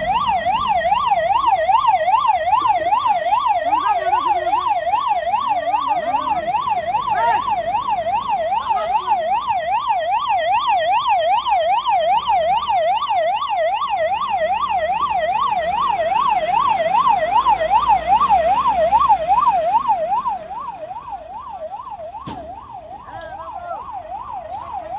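Electronic fire-engine siren sounding a fast, even rising-and-falling wail. It stays steady and cuts off abruptly at the very end.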